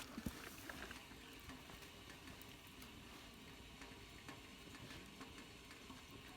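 Near silence: a faint quiet background with a few soft clicks in the first second.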